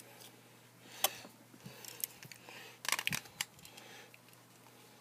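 Plastic clicks and snaps of a spring-loaded phone-holder clamp being worked by hand: a single click about a second in and a quick cluster of clicks around three seconds in.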